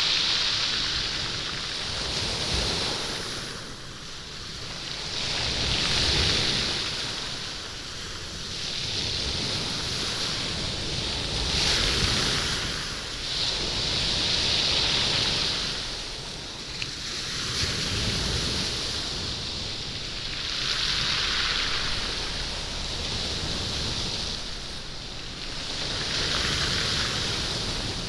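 Small waves washing up and back over a pebble beach, the stones rolling and rattling in the surf. The hiss swells and fades every few seconds as each wave comes in and draws back.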